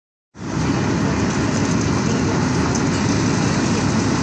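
Road cold-milling machine at work, its cutting drum grinding up the old asphalt surface while the conveyor drops the millings into a dump truck: a loud, steady, heavy mechanical rumble that starts about half a second in.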